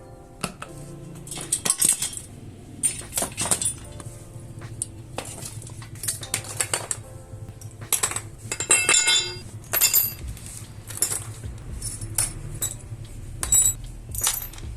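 Irregular metallic clinks and taps of hand tools and bicycle parts being handled and set down.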